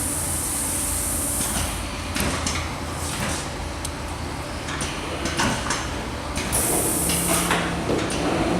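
Unibind BCC-10 thermal binding machine running its binding cycle: its mechanism clicks and clunks over a low steady hum. A high hiss from the air-driven machine stops about two seconds in and comes back briefly near seven seconds.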